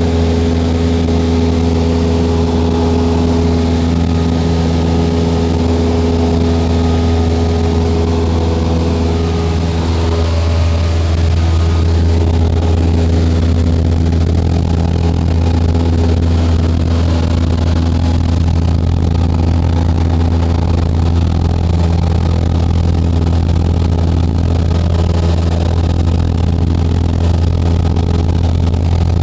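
Aircraft engine drone heard inside the cabin in flight: a loud, steady sound with a deep hum and a few steady higher tones that fade about a third of the way through.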